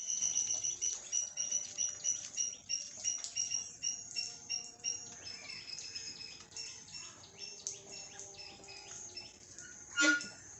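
Birds chirping in quick, repeated high notes, busiest in the first half. About ten seconds in, a single short, sharp, louder sound stands out.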